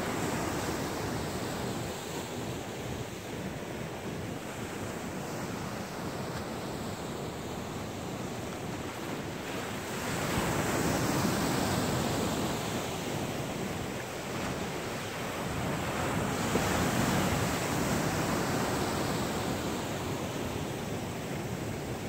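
Sea waves breaking and washing in, a steady surf rush that swells louder twice, about ten and sixteen seconds in, as waves break into foam.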